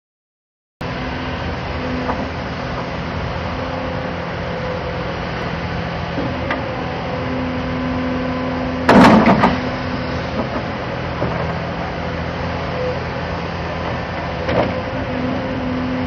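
2010 Hyundai Robex 300LC crawler excavator running, its diesel engine steady while a hydraulic note comes and goes as the boom and bucket move. A loud clank about nine seconds in, with a few lighter knocks elsewhere.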